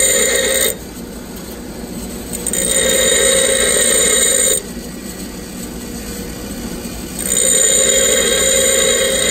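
Bench grinder running with a steel drill bit pressed against its wheel in three passes of about two seconds each, grinding the secondary clearance facets of a four-facet drill point. The grinding stops under a second in, starts again near three seconds, stops again, and starts once more about seven seconds in, with the grinder running quieter in between.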